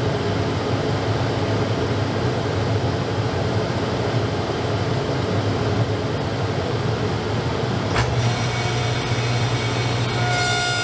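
Table saw with a single 3/16-inch dado blade running steadily while cutting dados in birch plywood. A short click comes about eight seconds in, and a higher ringing tone joins the drone near the end.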